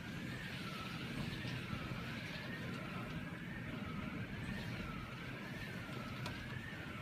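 Emergency-vehicle siren wailing, its pitch rising and falling about once a second, over the steady hiss of heavy rain.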